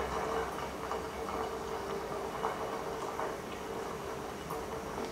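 Samosa rolls deep-frying in moderately hot oil: a steady gentle sizzle with faint scattered pops from the bubbles.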